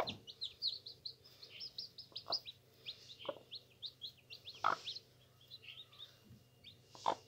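Newly hatched chicks peeping under a broody hen: a steady run of short, high, downward-sliding cheeps, several a second. A few short, lower rustling sounds come in between.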